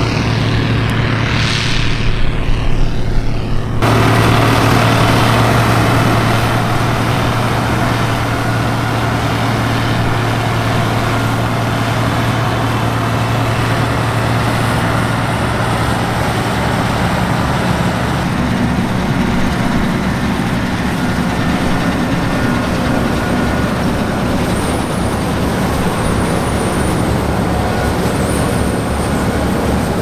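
Massey Ferguson 760 combine harvester working, its six-cylinder Perkins diesel engine running steadily with a constant low hum. About four seconds in the sound turns abruptly brighter and noisier, then stays steady.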